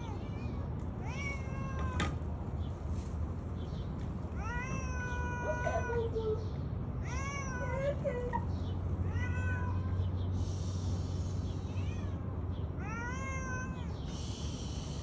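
A stray cat meowing repeatedly: about five drawn-out meows, each rising then falling in pitch, a few seconds apart.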